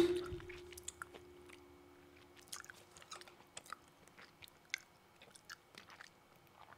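Faint, scattered small clicks and smacks close to the microphone, over a faint steady hum.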